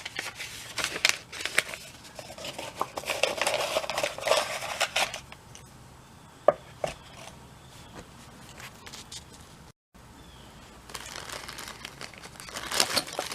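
Small metal hand tools and bits being handled and set down: scattered clicks and clinks with rustling, and one sharp knock about six and a half seconds in. The rustling and clatter pick up again near the end.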